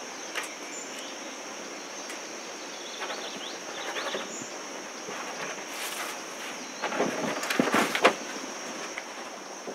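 Steady high-pitched drone of insects, with scattered rustles and soft knocks from movement at a table, loudest about seven to eight seconds in.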